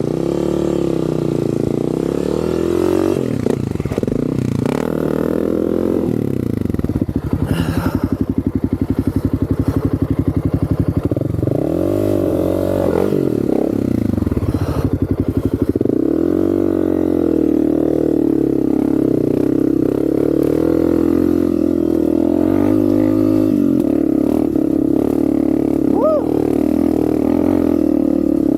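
Honda CRF250F dirt bike's single-cylinder four-stroke engine running under way, its revs falling and rising again several times as the throttle is rolled off and on, then holding steadier and higher near the end.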